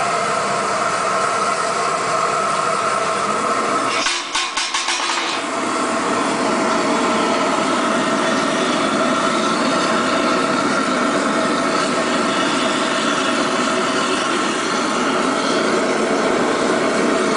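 Homemade Babington waste-oil burner heater running, with the air compressor that feeds it: a steady, even running noise with a constant hum. Its evenness is broken only by a brief fluttering dip about four seconds in.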